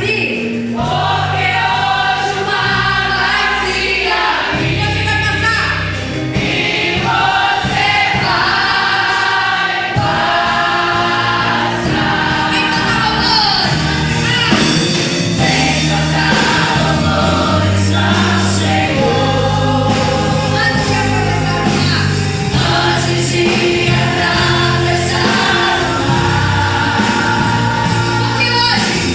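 Christian gospel song with a choir singing over a steady beat and bass line.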